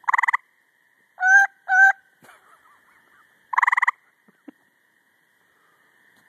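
Gray treefrogs calling: a short, fast pulsed trill at the start and another about three and a half seconds in. Between the trills come two shorter smooth notes, over a faint steady high drone.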